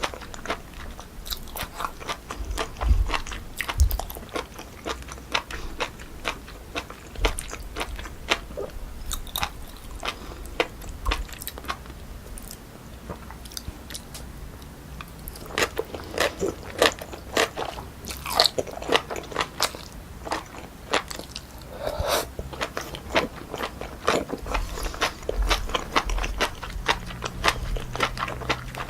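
Close-miked chewing and biting of naengchae jokbal, cold sliced pork trotters with crunchy jellyfish salad, with many sharp crunches. The crunching grows louder and denser about halfway through.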